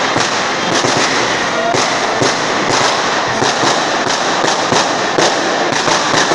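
Firecrackers going off in a rapid, irregular string of cracks and bangs over a constant crackling din.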